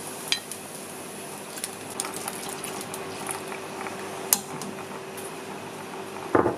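Pot of coconut-milk fish curry boiling on a gas stove, bubbling, while a metal ladle stirs it. The ladle clicks against the metal pot a couple of times, and there is a louder knock near the end.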